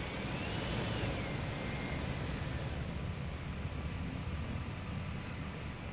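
Jet airliner's engines running on the runway, heard from a distance as a steady low rumble with hiss, and a faint wavering high whine in the first two seconds.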